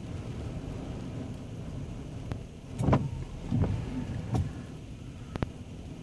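Strong wind and rough surf making a steady low rumble, with three gusts buffeting the microphone near the middle and a few short sharp clicks.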